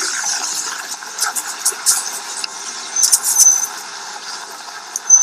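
Street traffic with a large vehicle, likely a bus, passing, and a brief high squeal about three seconds in.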